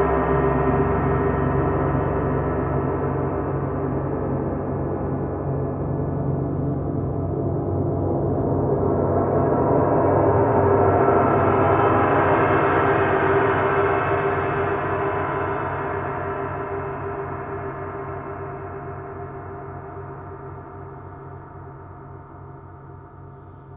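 Several large hanging bronze gongs, played with soft mallets, ringing together in a dense wash of overtones. The sound swells from about eight seconds in to a peak a few seconds later, then slowly fades.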